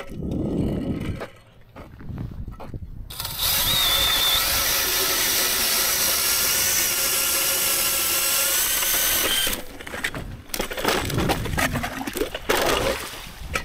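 Power ice auger drilling a hole through lake ice: a steady motor whine lasting about six seconds, starting a few seconds in. Low rustling knocks come before and after it.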